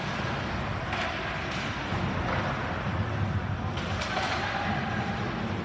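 Ice hockey play heard from the stands: skate blades scraping on the ice and sticks on the puck in a few short, sharp strokes, over the steady low hum of the rink, with a faint shout about four seconds in.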